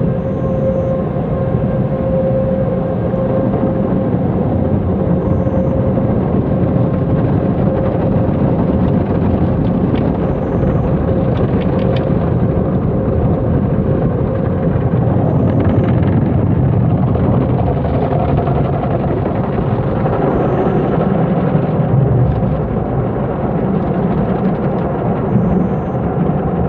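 Steady low mechanical rumble of automatic car-wash machinery, with a faint steady hum that fades over the first half.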